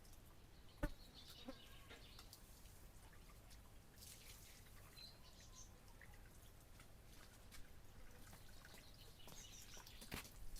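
Near silence: quiet outdoor ambience with faint, sparse bird chirps, a single sharp click about a second in and a few light ticks near the end.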